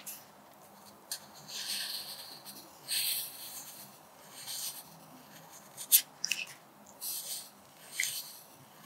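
Pencil point scratching across paper in a series of short cursive writing strokes, with a few sharp ticks between them.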